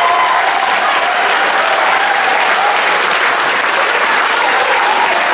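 Live audience applauding steadily.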